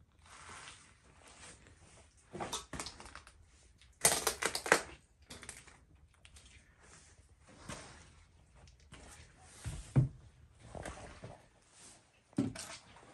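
Footsteps and movement through scattered debris: shuffling, rustling and irregular clatters and knocks. The loudest cluster comes about four seconds in, and a low thump about ten seconds in.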